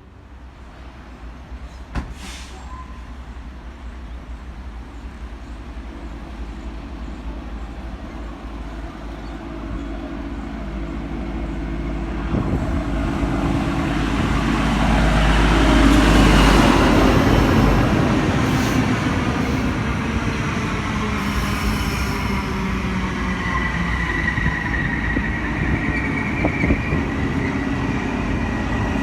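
A train approaching through the station, growing steadily louder to a peak about halfway and staying loud as it runs past, with a high wheel squeal in the later part.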